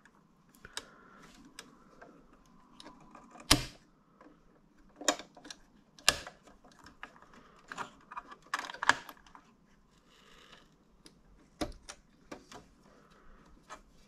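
Scattered clicks and taps of hands handling parts inside an open Dell desktop computer case around the CPU socket and cables, with quiet between; the sharpest click comes about three and a half seconds in.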